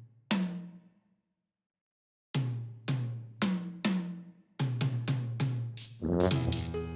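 Background music with drum hits. After one hit and a pause, a steady beat of about two hits a second starts, gets faster, and fuller music with held notes joins near the end.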